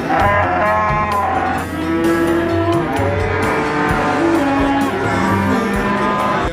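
Cattle lowing: several long, drawn-out moos, over background music.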